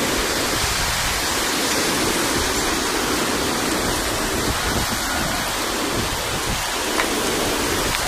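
Steady, even rushing hiss of the cyclone's wind and rain, with no single sound standing out.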